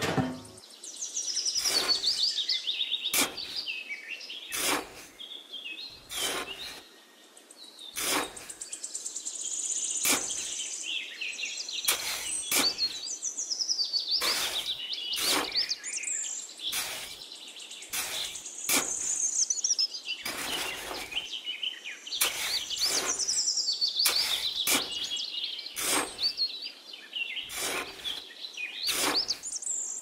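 Birds chirping and singing throughout, with repeated short scrapes and crunches, about one a second, of a small hand trowel digging into damp sand.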